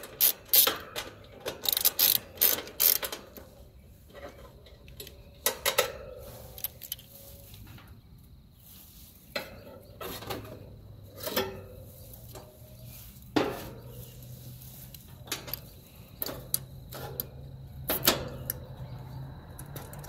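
Hand socket ratchet clicking in short runs, with scattered knocks of tools against metal, as a fastener is worked inside a heat pump's outdoor unit. A quick run of clicks in the first three seconds is the loudest part.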